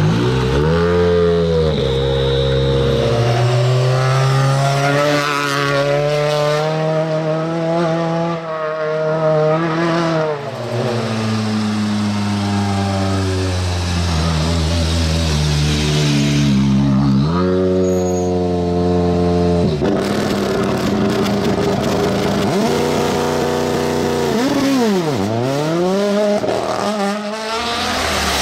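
Toyota Yaris WRC rally car's turbocharged four-cylinder engine at full throttle. The engine note climbs through each gear and drops at the shifts, over and over, with a few quick sharp sweeps up and down in pitch near the middle and the end.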